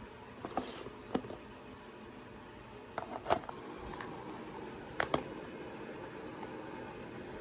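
A few light clicks and knocks, mostly in close pairs, over a steady background hum in a small room.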